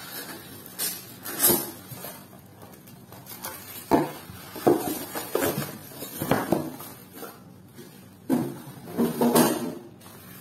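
Plastic packaging bags crinkling and rustling in irregular bursts as blender parts are pulled out of a cardboard box, with a few sharp knocks of the parts and box being handled.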